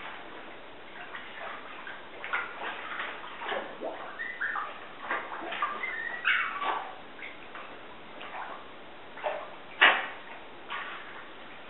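A Morkie (Maltese–Yorkshire terrier cross) dog whimpering in a few short high cries, amid light splashing and dripping of bathwater; one sharper, louder splash about ten seconds in.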